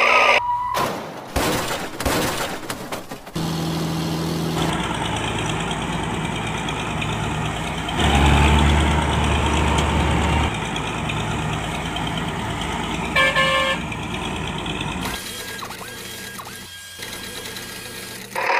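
Truck engine sound running at a steady low drone, louder for a couple of seconds about eight seconds in, with a short horn honk about thirteen seconds in. A few knocks come in the first few seconds.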